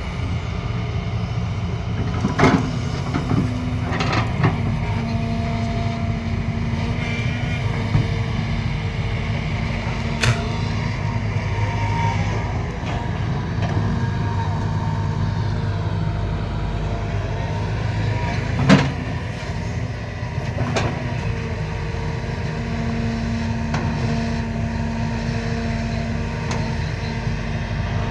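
Excavator engine running steadily, with several sharp knocks over it. The loudest knock comes about two-thirds of the way through.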